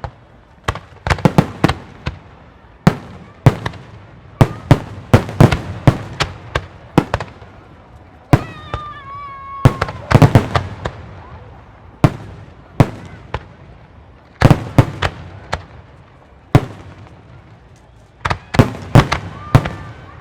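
Aerial display fireworks shells bursting in an irregular barrage, sharp loud bangs coming one to several per second, clustered in places, each with a short echo.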